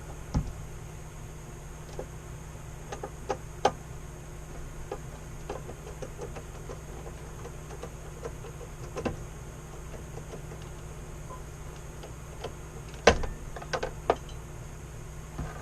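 Scattered clicks and knocks of hands working on a monitor mount and its screws, a sharper knock about 13 seconds in, over a steady low hum.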